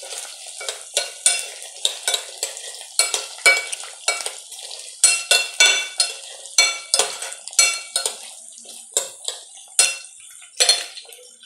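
Metal spoon stirring carrots and onions in a pot, clicking and scraping against the pot's sides in quick, irregular strokes with a metallic ring. A faint sizzle of the vegetables frying in oil runs underneath.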